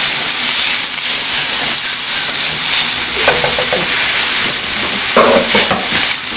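Chopped onion, garlic and parsley sizzling steadily in hot oil in a nonstick frying pan while they are stirred with a silicone spatula.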